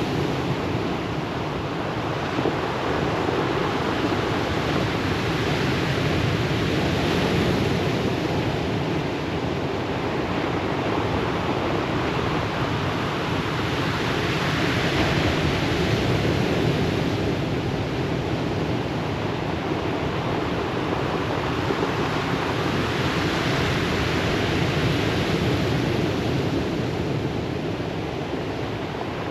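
Ocean surf breaking and washing up a pebble beach: a steady rush that swells three times as waves come in, about every eight seconds.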